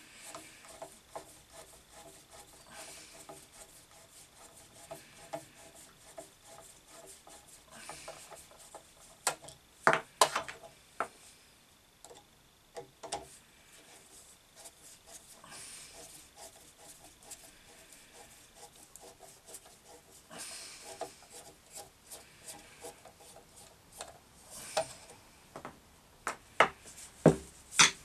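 Screwdriver turning screws out of a bench grinder's metal base cover plate: a run of small ticks and rasping, squeaky turns, with a few sharper clicks, the loudest about ten seconds in and near the end.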